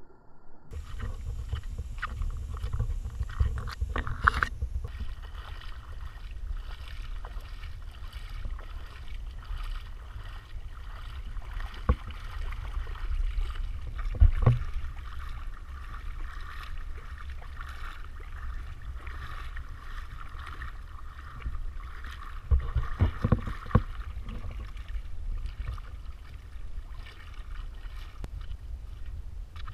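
Shallow water splashing and sloshing around a wading Pembroke Welsh Corgi puppy, with a steady low rumble of wind on the microphone. A few louder splashes stand out, the loudest about halfway through.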